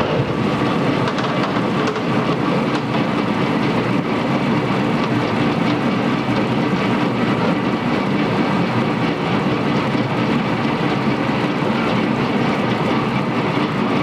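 Industrial abrasive potato washer-peeler running, its abrasive rollers turning under water sprays while potatoes tumble and knock against one another and the steel tub, giving a loud, steady clatter over the hiss of the water.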